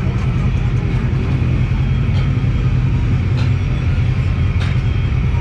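Polaris RZR Turbo XP side-by-side engine running steadily under way, with a few sharp knocks from the machine about 2, 3.5 and 4.5 seconds in.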